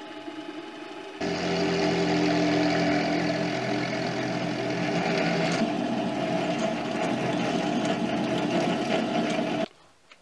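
Mini lathe running with a steady motor and gear whine, then from about a second in the louder, rougher sound of a twist drill cutting into a spinning metal workpiece. The sound cuts off suddenly near the end.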